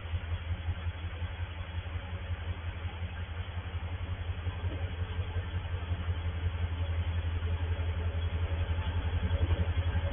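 Diesel locomotive of an approaching loaded ballast train, its engine giving a low, steady throb that grows slowly louder as it nears. Heard through a station security camera's microphone, thin and without any high end.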